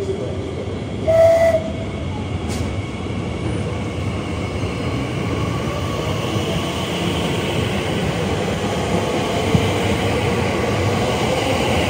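A train on the move through a station, its rumble getting steadily louder. A short, high horn-like tone sounds about a second in.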